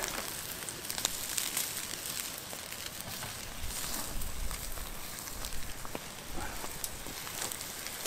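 Wood campfire crackling, with scattered sharp pops over a steady hiss.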